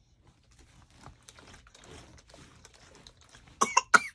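Two short, loud vocal outbursts from a person, close together, about three and a half seconds in. Each has a quick rise and fall in pitch. Before them there is only faint room noise.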